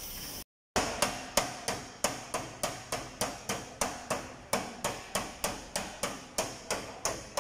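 A bodywork tool tapping a car's steel door skin in a steady rhythm, about three sharp strikes a second, beginning after a brief silence near the start. This is panel beating to work a damaged door back into shape.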